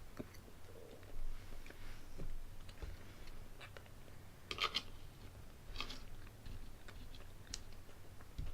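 Faint chewing and mouth sounds of someone eating pumpkin pie, with scattered small clicks and two louder, sharper smacks near the middle.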